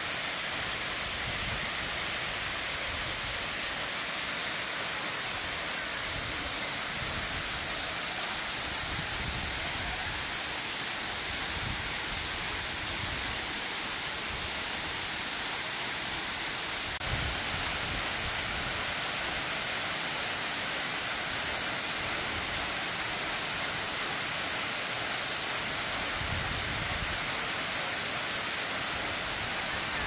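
Waterfall cascading down a rock face onto boulders and a pool: a steady rush of falling water that gets a little louder about halfway through.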